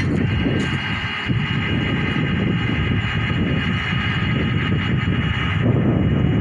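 Truck-mounted borewell drilling rig running with a loud, steady low rumble. A steady high whine comes in over it just after the start.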